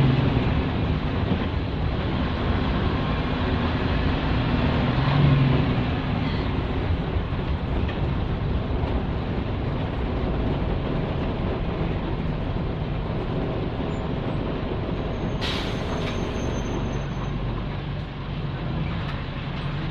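Nissan Diesel K-U31L route bus heard from inside the cabin while driving: its PE6H inline-six diesel engine running under load with road and body noise. The noise swells briefly about a quarter of the way in. A sharp click with a thin high whine comes about three-quarters of the way through.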